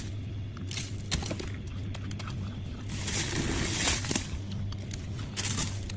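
Soft freezer frost crunching in a few noisy bursts, about a second in and again from about three to four seconds in, over a steady low hum.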